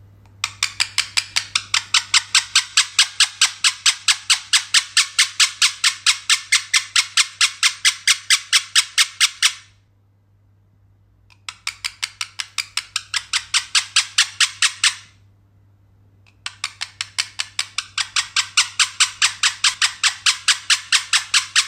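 Pet parrot making a strange, rapid run of scratchy calls, about four a second and very evenly spaced, in three long bouts with short pauses between them.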